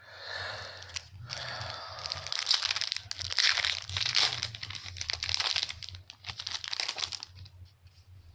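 A trading-card pack wrapper being crinkled and torn open: a dense crackling rustle, loudest from about two to seven seconds in.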